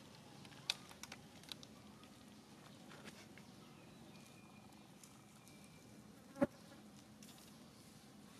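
Faint steady background noise with a few light clicks in the first second and a half, a faint thin high tone held for about two seconds in the middle, and one sharp knock about six and a half seconds in, the loudest sound.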